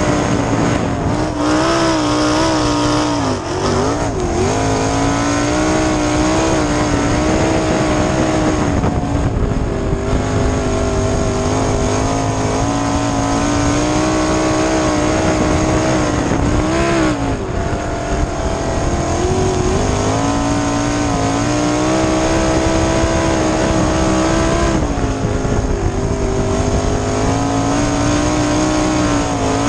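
A 410 sprint car's V8 engine running hard at racing speed, heard from the cockpit. Its pitch dips briefly a few seconds in and again past the middle, then climbs back.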